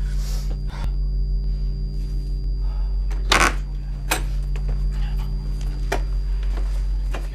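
A door is unlatched and swung open, with a sharp knock about three and a half seconds in and a couple of lighter clicks after it, over a steady electrical hum.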